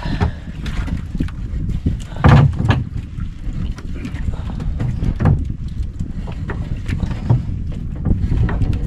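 Wind buffeting the microphone on a small fishing boat at sea, with a few sharp knocks, the loudest about two and a half seconds in.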